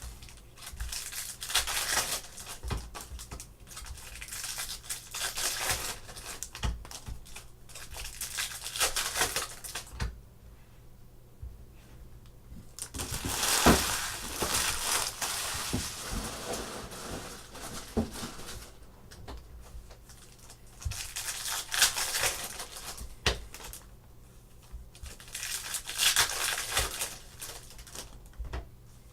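Crinkling and tearing of plastic and foil packaging as trading-card wrappers are torn open and handled, in bursts with short pauses.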